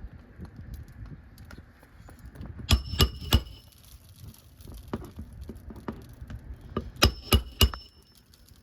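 Hammer striking a roof snake tool to drive roofing nails under an overlapping asphalt shingle, with a metallic ring: a quick group of three blows about three seconds in, and another three or four about seven seconds in.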